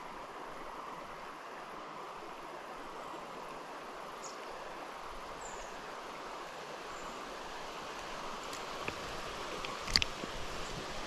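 Steady rush of flowing river water, with a few faint high chirps in the middle and a sharp click about ten seconds in.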